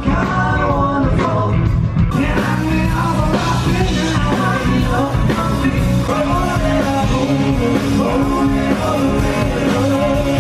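Live rock band playing, with a lead singer over guitar, bass and drums.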